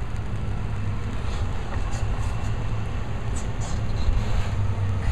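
Hydraulic excavator's diesel engine running steadily, with a few faint clinks around the middle.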